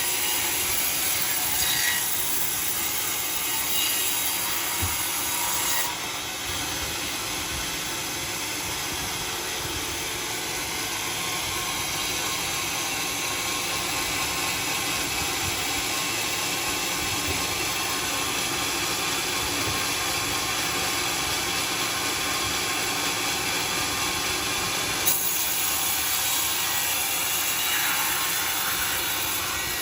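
Sawmill blade cutting lengthwise through a log of bayur wood, a steady grinding saw noise with the machine running underneath. Its high end shifts about six seconds in and again near the end.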